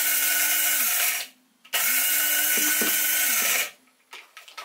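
Kingtop electric blade coffee grinder grinding coffee beans in two pulses of about two seconds each. The motor hum rises as it spins up, holds steady, and falls away when switched off, the first pulse ending about a second in and the second running from just under two seconds in to about three and a half. A few light clicks follow near the end.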